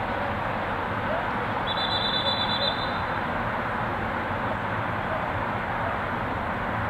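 A referee's whistle blown once, about two seconds in: a high steady tone lasting just over a second, over a steady rush of background noise.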